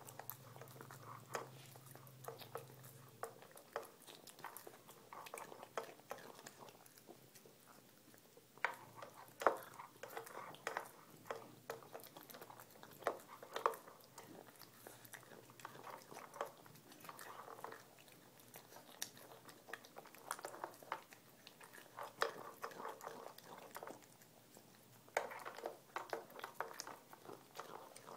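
Cat chewing and biting its food close to the microphone: a run of irregular short clicks and smacks with brief pauses between mouthfuls.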